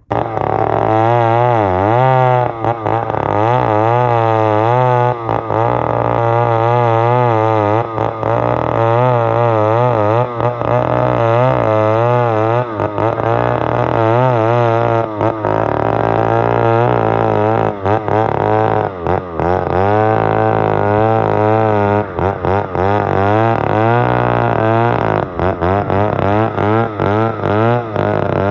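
Music: a steady low drone under a wavering, melodic line that keeps sliding up and down in pitch.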